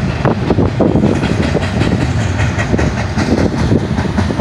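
Double-stack intermodal well cars rolling past: a loud, steady rumble of steel wheels on rail, with many rapid clicks and clacks.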